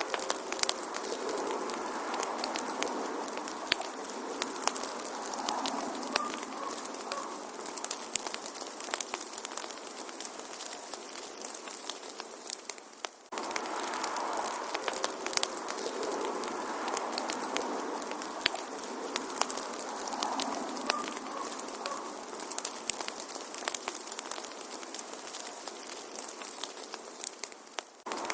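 Wood fire crackling in a fireplace: a steady hiss of burning with frequent sharp pops and snaps. The recording loops, dipping briefly about 13 seconds in before the same stretch of crackling repeats.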